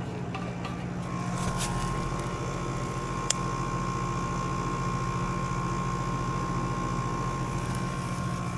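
Central air conditioner's outdoor condensing unit running, a steady hum from its compressor and fan. A thin steady whine joins about a second in, and there is one sharp click a little after three seconds.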